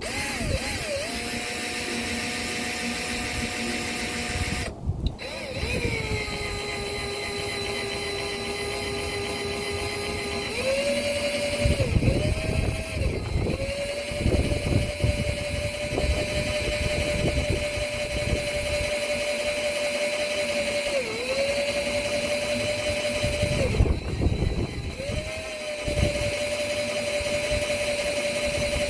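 Electric drill running in reverse, a left-handed drill bit boring into a bolt broken off inside an engine's cylinder head. The motor whine holds a steady pitch, drops about five seconds in, rises again about halfway through, and sags briefly several times as the speed changes.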